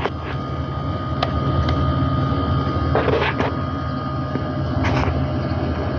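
Air conditioner running with a steady mechanical hum while it is charged with refrigerant, with two brief hisses about three and five seconds in.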